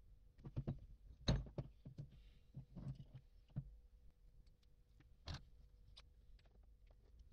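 Faint clicks and knocks of a hydraulic jack's steel piston and its seal being handled, the seal being taken off the piston, with the sharpest knocks about a second in and about five seconds in.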